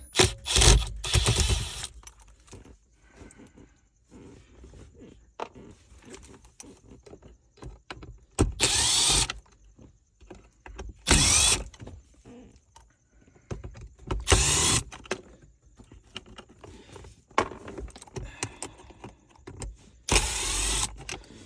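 Power drill-driver spinning out Phillips screws from a truck's centre console in about five short runs of a second or so each, with small clicks and handling noise between them.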